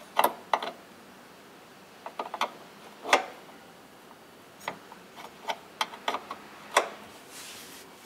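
A metal wrench clicking and clinking on a bolt as it is worked to tighten a washing machine's motor bracket, locking in the tension of a newly fitted drive belt. The clicks are sharp and irregular, about a dozen, with the loudest about three seconds in.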